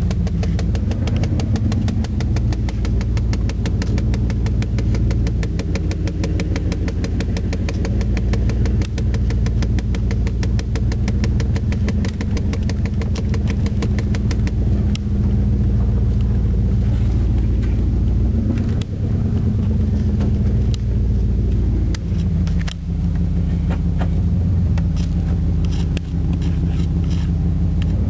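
1993 Chevrolet Silverado's 305 cubic-inch V8 running steadily, heard from inside the cab.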